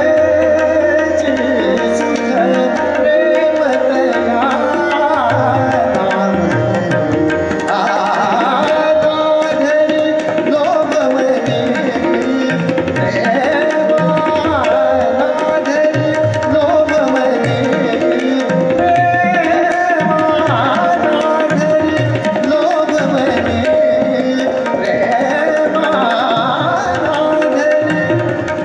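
Live Marathi natyageet: a tabla keeps a steady rhythmic cycle under harmonium, while a male voice sings gliding, ornamented melodic phrases.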